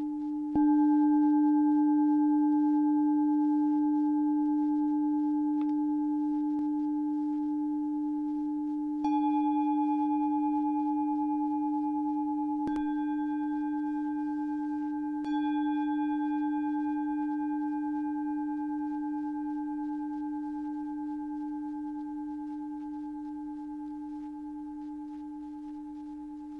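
Singing bowl ringing with a low hum and higher overtones, struck anew a few times. Each strike swells up suddenly and then slowly fades, with a slight wavering pulse.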